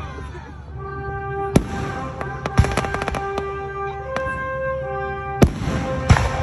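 Aerial firework shells bursting in a series of sharp booms, with a quick cluster of pops about three seconds in and the loudest bang about five and a half seconds in. Music with long held notes plays throughout under the bangs.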